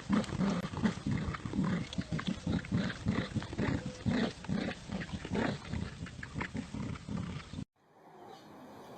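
An animal making a quick, uneven run of short, low sounds, about two or three a second, cut off abruptly near the end.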